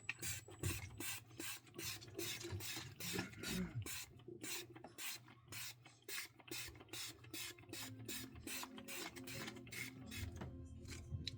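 Hair being worked through after detangler spray: quick rasping strokes, about three to four a second, that keep up steadily.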